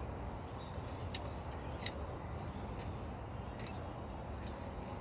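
Faint steady outdoor background noise with a few short, light clicks, about one and two seconds in, and a brief high tick a little after.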